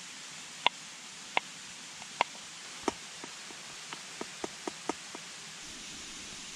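Knife slicing mushrooms on a wooden cutting board, sharp knocks about every 0.7 s, then a run of lighter, quicker clicks as the pieces are pushed off the board into a metal pot. A mountain stream rushes steadily underneath.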